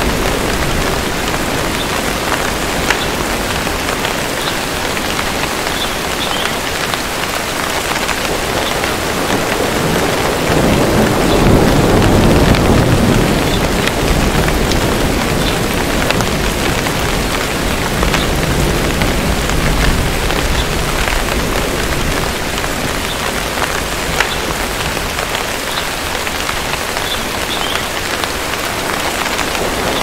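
Steady heavy rainfall, with a low rumble of distant thunder swelling about ten seconds in and fading a few seconds later.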